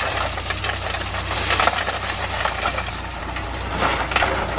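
Heavy diesel engine running steadily, with bursts of stone scraping and clattering about a second and a half in and again near the end.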